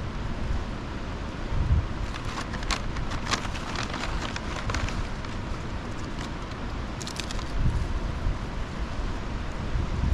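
Wind rumbling on the microphone, with bursts of crinkling and crackling from food being handled while a burrito is filled and wrapped, about two to five seconds in and again near seven seconds.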